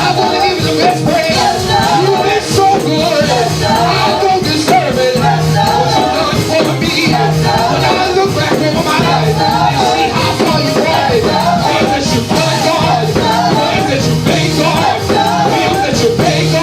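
Live gospel praise music from a church band, with a steady beat and voices singing.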